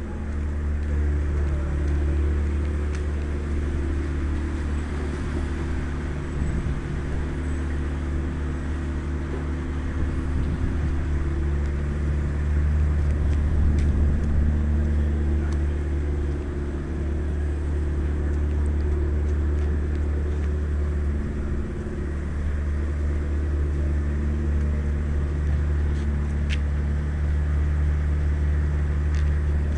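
An engine or motor running steadily, a deep even drone that holds one pitch without revving.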